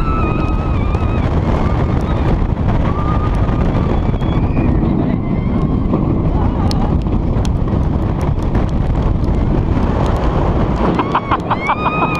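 Wind rushing over the microphone and the rumble of a B&M hypercoaster train running at speed along its steel track. Riders yell a held note at the start and again near the end.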